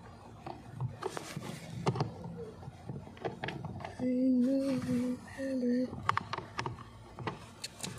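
Scattered small plastic clicks and taps of hands fitting a blower motor resistor module up under the dashboard, with a man humming two short notes in the middle.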